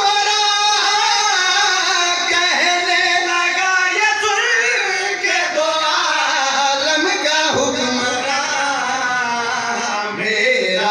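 A man's voice singing a lament (masaib) in a melodic recitation style, amplified through a microphone.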